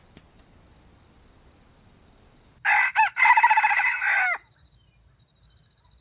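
A red junglefowl rooster crows once, a short crow of a little under two seconds about halfway through, with a brief catch near its start and an abrupt cut-off at the end.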